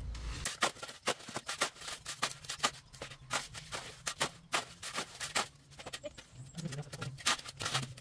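Steel shovel and small trowel scraping and chopping through a heap of sand-and-cement mix on a concrete slab, mixing mortar by hand: a quick, irregular run of gritty scrapes.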